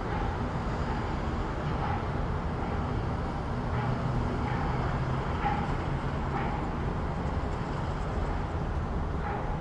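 City street ambience: a steady rumble of road traffic, with a few faint short sounds scattered through it.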